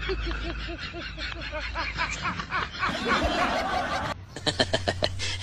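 Snickering, chuckling laughter: a quick run of short repeated laughs, changing to a different mix of sounds about four seconds in.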